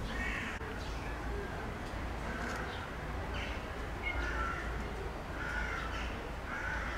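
Outdoor birds calling over and over, short harsh calls about once a second, over a steady low rumble.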